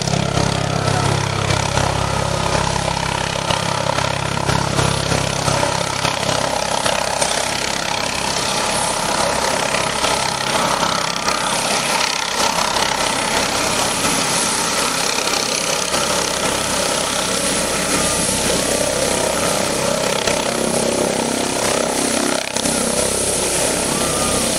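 Helicopter descending and setting down to land: steady, loud turbine and rotor noise.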